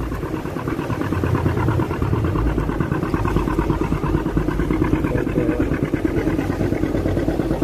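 A sailing boat's engine running steadily with a fast, even pulse as the boat motors in under power.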